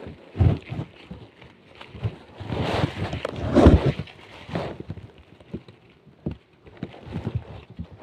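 Irregular rustling and knocking as dry bamboo leaf litter and pieces of wild honeycomb are handled, with a louder low thump about three and a half seconds in.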